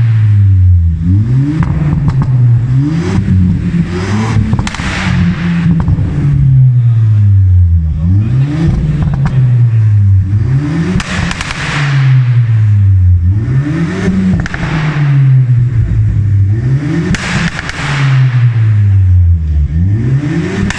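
Audi A5 1.4 engine with pops-and-bangs tuning software, revved in repeated blips about every two seconds, its note rising and falling each time. Exhaust crackles and pops come as the revs drop.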